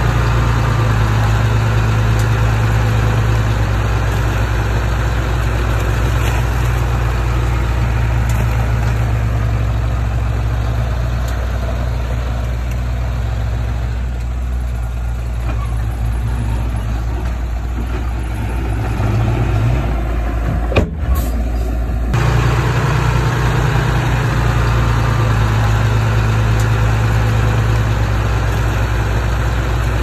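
Bulldozer's diesel engine running steadily under load, easing off a little midway, with one sharp knock about two-thirds of the way through.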